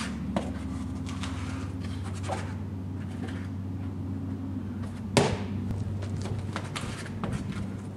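Shoes and hands scuffing and scraping against a brick pillar as a person climbs it, with one sharp thud about five seconds in, over a steady low hum.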